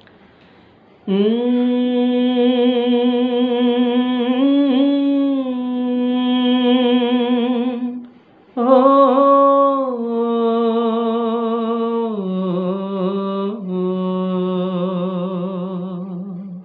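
A man singing unaccompanied long wordless notes with vibrato, recorded through a wired earphone microphone. There are two long phrases with a short breath between them about 8 s in, and the second phrase steps down in pitch about 12 s in.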